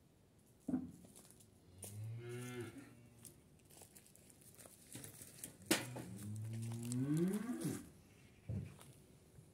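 A cow mooing twice: a shorter low call about two seconds in, then a longer one whose pitch rises toward its end. A short sharp sound comes just before the first call, and another near the end.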